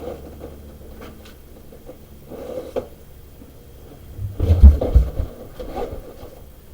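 Large truck tire being worked onto a split-ring rim: a few light knocks, then a heavy, deep thud with further knocks about four and a half seconds in.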